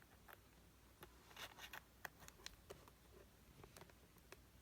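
Near silence with faint, scattered small clicks and rubbing from a USB-C cable being handled.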